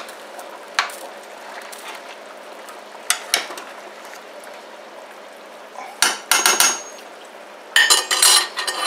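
Long metal spoon scraping and knocking against a metal pot while chicken and sausage are stirred, over the steady hiss of the simmering pot. A few single knocks come about a second and three seconds in, then quick bursts of clattering near the end as the spoon is tapped and laid down on a ceramic plate.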